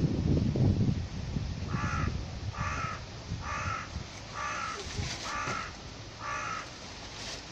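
A crow cawing six times in an even series, each caw short and harsh, about one a second. A low rumble runs underneath during the first second.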